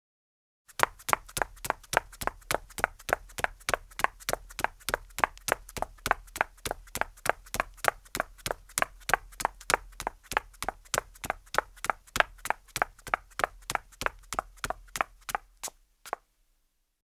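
Women's high heels walking on concrete: a steady, even run of sharp heel clicks, about three a second, starting about a second in and stopping near the end.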